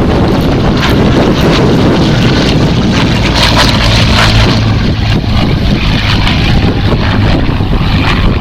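Hawker Hurricane's Rolls-Royce Merlin V12 engine droning in a flypast, with a low steady hum that swells in the middle, mixed with heavy wind buffeting on the microphone.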